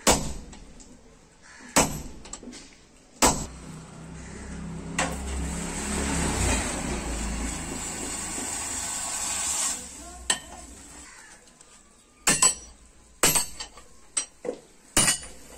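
Sledgehammer blows on red-hot steel on a small blacksmith's anvil: three heavy strikes in the first few seconds. A steady rushing noise with a low rumble follows for about five seconds as the blade reheats in the coal forge, then a quicker run of hammer strikes on the anvil near the end.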